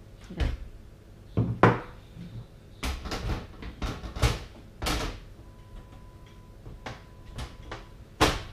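Windowed side panel of a Bitfenix Aegis micro-ATX computer case being fitted onto the chassis: a series of knocks and clicks as it is lined up and pressed into place. The loudest knocks come about a second and a half in and just before the end.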